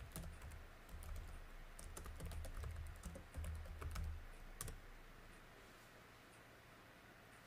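Computer keyboard typing: a run of quick keystrokes for about four and a half seconds, then it stops.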